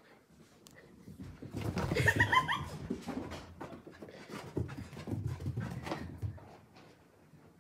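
A small dog tearing around the house after a bath: quick thuds and footfalls on carpet, with a few short, rising high-pitched cries about two seconds in.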